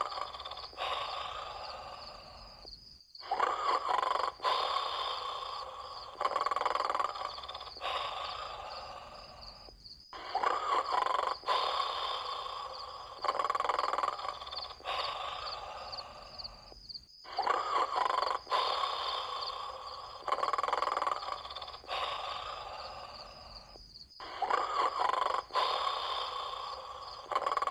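Snoring during sleep in a steady repeating cycle: each snore starts loud and fades, with a brief silent gap about every seven seconds.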